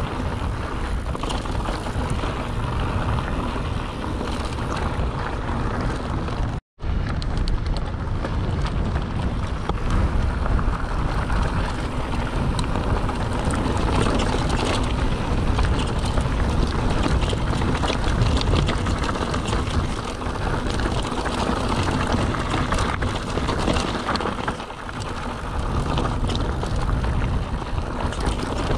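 A mountain bike rolling along a wide, loose-surfaced track: steady tyre noise, with wind rushing over a helmet-mounted action camera's microphone. About seven seconds in, the sound cuts out for a moment.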